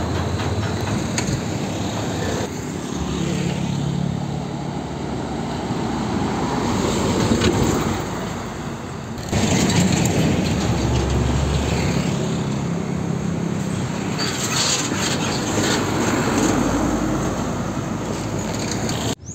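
Heavy tanker trucks' diesel engines running as they drive past, with road traffic noise. The sound shifts abruptly twice, about two and a half seconds in and again near the middle.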